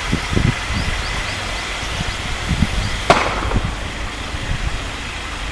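Trackside outdoor ambience with an irregular low rumble of wind on the microphone, a few faint high chirps in the first second and a half, and one sharp click about three seconds in.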